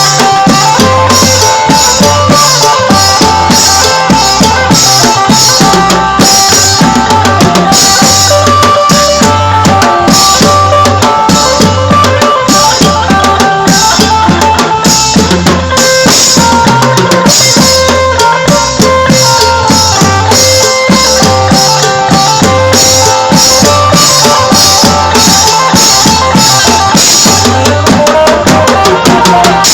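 Isan phin prayuk band playing a dance tune, loud, with a drum kit keeping a steady beat under a held, amplified melody.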